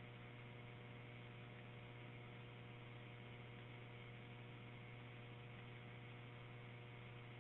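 Faint steady electrical hum with light hiss from a recorded fire dispatch radio channel between transmissions.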